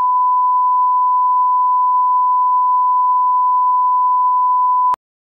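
A steady 1 kHz test tone, one pure unchanging pitch, of the kind laid at the head of a film as a level reference; it cuts off suddenly near the end.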